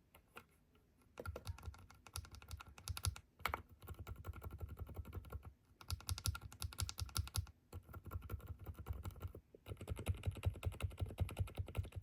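Typing on a Rainy 75 mechanical keyboard fitted with silent switches: quiet, rapid keystrokes in about five runs of a second or two, with short pauses between them.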